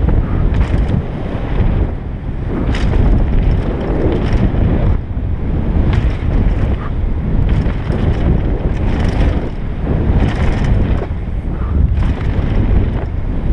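Downhill mountain bike, a 2013 GT Glory, riding fast down a dirt trail, heard through an action camera: loud wind on the microphone over the rumble of the tyres on the ground, with the bike clattering now and then over bumps.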